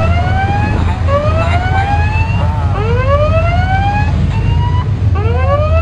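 Ship's warning siren sounding repeated rising whoops, several overlapping, every second or two over a steady low rumble, during a close confrontation between patrol vessels at sea.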